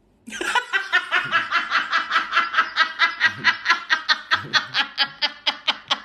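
A man laughing hard in a long run of rapid, even bursts, about five a second, starting suddenly a moment in.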